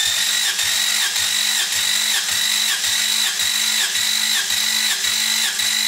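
Starter motor cranking a Toyota 5VZ-FE 3.4 L V6 with its spark plugs out for a compression test: a steady high whine that dips slightly in a regular rhythm about twice a second.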